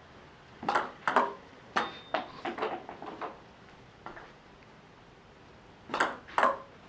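Table tennis ball struck by a paddle on a backhand sidespin serve, clicking off the paddle and the table, then a run of lighter bounces as it comes to rest. About six seconds in, two more sharp clicks as the next serve starts.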